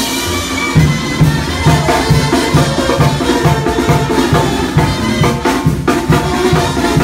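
Live banda music: a sousaphone/tuba plays a steady pulsing bass line under trombones and trumpets, with a drum kit and cymbals keeping the beat.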